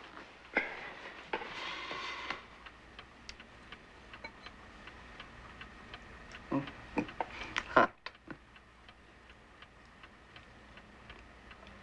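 A clock ticking steadily, about three ticks a second, with a few louder knocks around six to eight seconds in.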